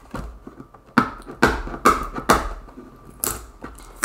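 Hands handling a cardboard box on a plywood tabletop: four light knocks and taps about half a second apart, then a brief cardboard scrape about three seconds in.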